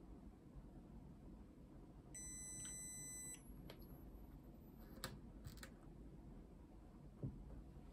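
A SEA&SEA YS-D3 DUO underwater strobe gives one steady electronic beep lasting about a second while its Target Light button is held down. Then come a few sharp clicks as its power dial is turned to off.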